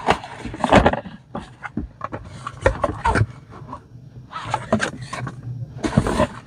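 Cardboard product box being handled: the lid is opened and closed, with scrapes and a run of short knocks and clicks as the contents inside are moved about.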